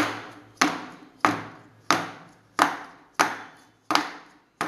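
Metal springform cake tin full of sponge batter knocked repeatedly on a countertop, eight sharp knocks about two-thirds of a second apart, each dying away quickly. The tapping settles the batter and knocks out air bubbles before baking.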